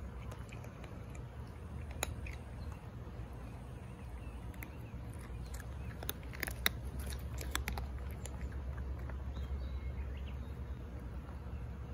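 Cats chewing treats taken from a hand: scattered small crunching clicks, thickest a little past the middle, over a steady low rumble.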